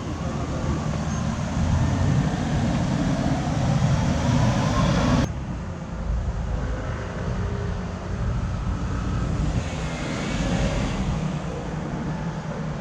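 Open-top tour bus on city streets: its diesel engine and traffic make a steady low rumble, with a faint rising whine as it pulls away. About five seconds in the sound changes abruptly to quieter street and road noise.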